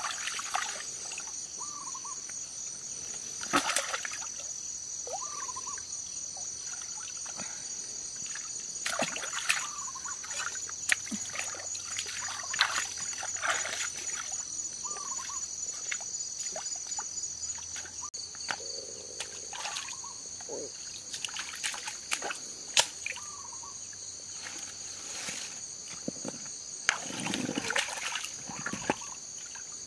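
Bare feet wading through a shallow, muddy stream: water splashing and trickling around the legs, with a few knocks as stones are handled in the water near the end. A steady, high-pitched insect drone runs underneath.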